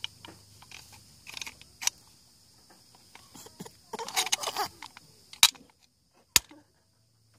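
Screwdriver scraping and clicking against a plastic toy tractor's axle: small scattered clicks, with a short strained grunt from a toddler about four seconds in and two sharp clicks near the end.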